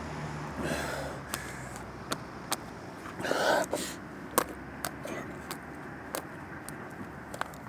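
A utensil clicking and scraping against a plastic food tub while someone eats, many small sharp ticks at irregular intervals, with one louder half-second rustle about midway. A low steady hum of distant traffic sits underneath at first.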